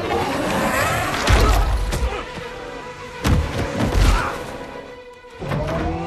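Action film soundtrack: music with heavy booms and crashing debris. The biggest impacts come about a second and a half, three, and four seconds in.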